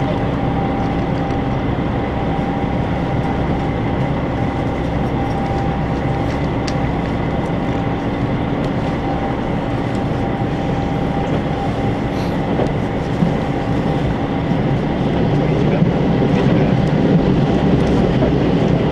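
Steady running noise heard inside the passenger car of a Super Hakuto limited express, a Chizu Express HOT7000-series diesel railcar, as it travels along the line. A dense rumble of wheels on rail carries a few held tones from the running gear. The rumble swells a little louder near the end.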